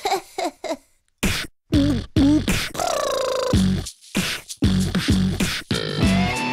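A voice beatboxing and singing short vocal hits, with one held note that wavers, as a theme-song intro. A band with electric guitar comes in near the end.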